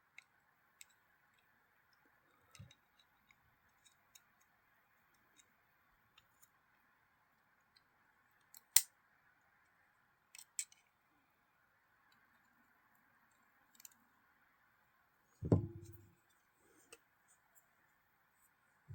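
Sparse small metallic clicks and taps from a Benchmade Emerson folding knife's parts and a driver bit being handled during reassembly. The sharpest click comes about nine seconds in, and a duller knock about three-quarters of the way through.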